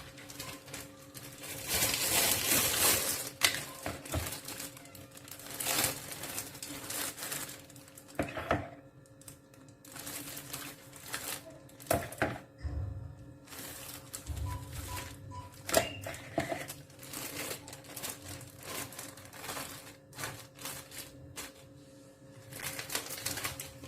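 Plastic freezer bags filled with tomato purée being handled and crinkled, with irregular clicks and light knocks, over a steady low hum.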